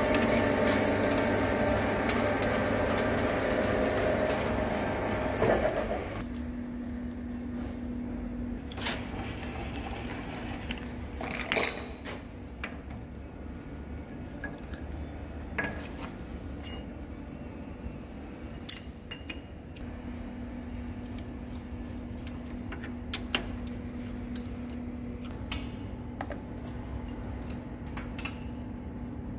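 Centre lathe machining the inside of a steel cylinder barrel, a dense steady machine sound that stops about six seconds in. After that, a steady hum with scattered sharp clinks and knocks of steel tool holders being swapped and set in the lathe's tool post.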